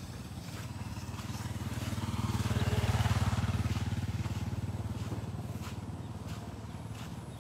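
A small motorcycle rides past: its engine grows louder as it approaches, is loudest about three seconds in, then fades away.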